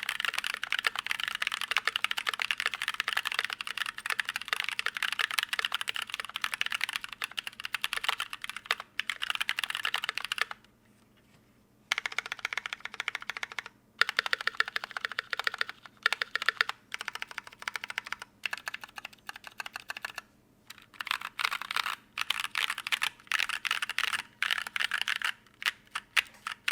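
Typing on a KBD67 MKII mechanical keyboard with stock NovelKeys Blueberry tactile switches, a brass plate and GMK keycaps: fast, continuous keystrokes, with a pause of about a second near the middle and a few shorter breaks later.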